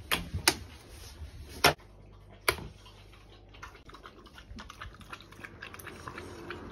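A few sharp knocks in the first couple of seconds, then a French bulldog with its mouth in a stainless steel bowl, making a run of quick small clicks and ticks against the metal.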